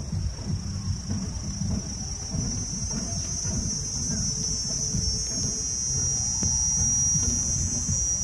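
A steady, high-pitched insect drone, growing louder over the second half, over an uneven low rumble.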